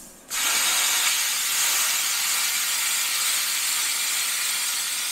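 Plasma cutter (ESAB/Thermal Dynamics Cutmaster 40) cutting metal freehand. A loud, steady hiss of air and arc starts abruptly just after the beginning.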